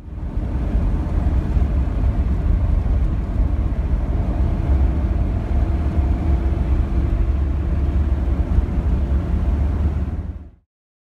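Steady low rumble of a car driving along a paved road, road and engine noise with a faint hum, fading out shortly before the end.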